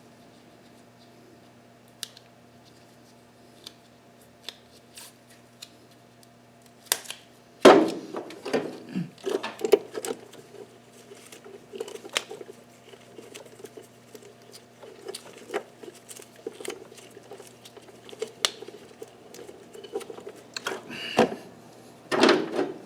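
Hand work on engine-bay wiring: scattered small clicks, then from about eight seconds in a run of louder rustling, scraping and knocking as parts and tape are handled, over a steady electrical hum.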